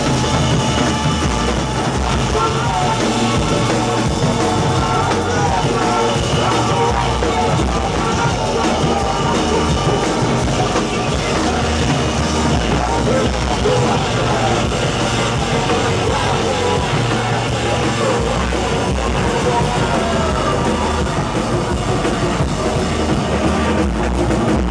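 A live band playing loud, dense rock music without a break: a drum kit with electronics, and yelled vocals.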